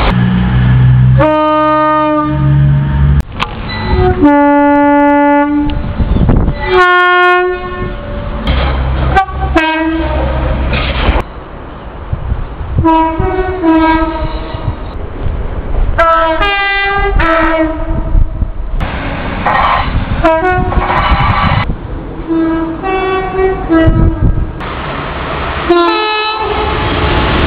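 Two-tone horns of British diesel trains sounded again and again, about nine separate blasts, some on one note and some switching between a low and a high note. The low rumble of the trains running fills the gaps between blasts.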